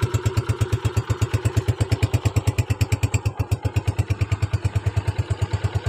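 Engine of a 2016 Honda motorcycle idling steadily, a regular exhaust pulse of about ten beats a second with no revving.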